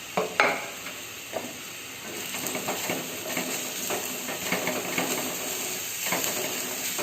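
Sliced onions frying in hot oil in a wok, stirred with a spatula that knocks and scrapes against the pan. There are a few sharp knocks at the start, and the sizzling and scraping get louder about two seconds in.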